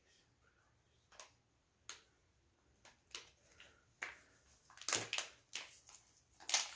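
Hands handling medical supplies: scattered light clicks and rustles, sparse at first and busier from about four seconds in.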